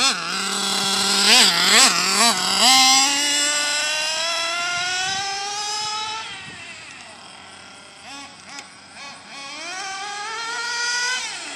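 Nitro RC car's small glow engine with an aluminum tuned pipe, high-pitched: a few quick throttle blips from idle, then a long rising rev as the car speeds off, fading away. A few more blips follow, then a second rising rev near the end. The owner says the engine still needs its high-speed mixture tuned.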